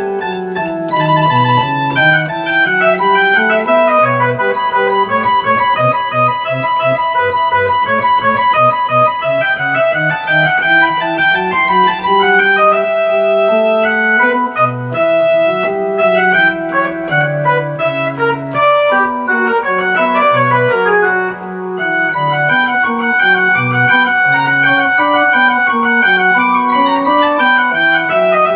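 Two-manual digital organ playing a lively baroque piece, several lines of notes moving at once over a sustained bass, with a brief dip in the sound about three quarters of the way through.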